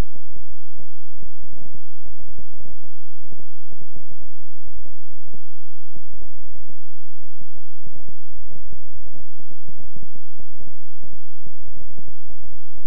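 Electronically generated low drone of steady tones, the audio of a 'healing frequency' track, with rapid irregular throbbing pulses several times a second.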